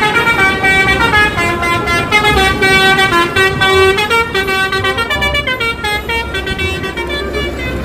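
Telolet bus horn, a multi-trumpet musical air horn, playing a tune of stepped notes with several tones sounding together.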